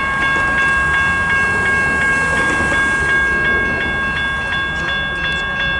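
Railroad crossing bell ringing steadily, about three strikes a second, over the low rumble of an approaching freight train.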